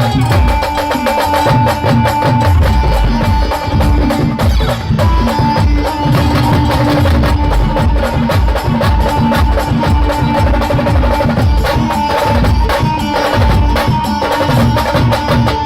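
A band playing a Pawari folk tune: a sustained melodic line holding steady notes over a driving, regular drum beat.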